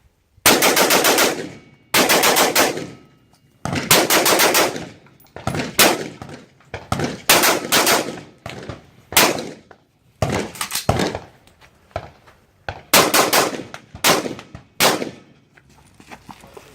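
Semi-automatic gunfire in quick strings, several shots a second, with brief pauses between strings as the shooter moves from target to target.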